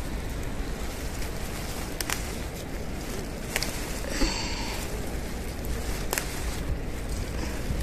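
Leaves rustling and a few sharp snaps as young ground elder stems are picked by a gloved hand in a dense patch.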